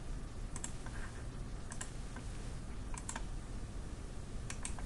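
Computer mouse buttons clicking, a few short sharp clicks mostly in quick press-and-release pairs about a second apart, over a faint steady background noise.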